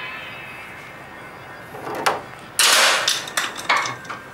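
Plastic casing of a wall-mounted split air conditioner being handled: a sharp click about two seconds in, a short scraping rattle, then two more clicks.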